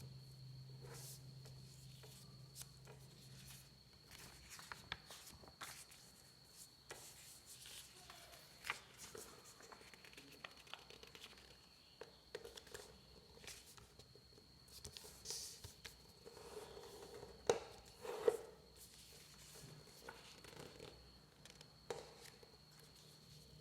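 Paper being folded and creased by hand: faint scattered rustles and crinkles, with two sharper snaps about three-quarters of the way through. A faint steady high-pitched whine runs underneath.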